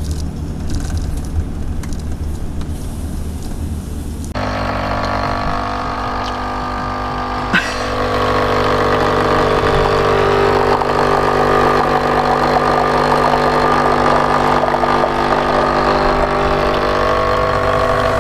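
Engine and road noise inside a Hymer ML-T 570 motorhome's cab for the first few seconds. It cuts suddenly to a capsule coffee machine's pump buzzing steadily as it brews into a mug, with a click about three seconds later and louder hissing from then on.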